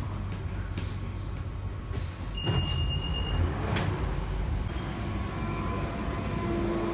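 London Underground 1992 Stock train running through a tube tunnel: a steady low rumble, with two knocks a couple of seconds in and a brief high steady tone lasting about a second between them.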